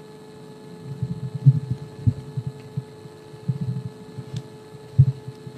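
Steady electrical hum from a public-address system, with irregular low thumps and rumbling over it, like a podium microphone being handled.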